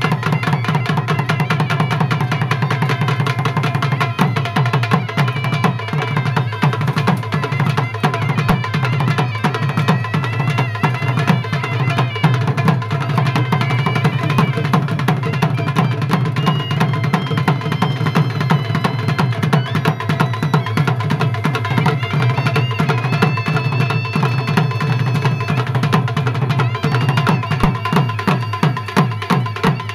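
Music with fast, steady drum beats and a held high melody line above them.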